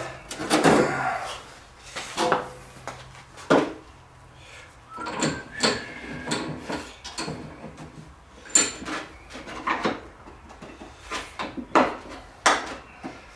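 Tools and cans being handled, moved and set down on a cluttered workbench: a string of irregular knocks and clatters with a few brief clinks.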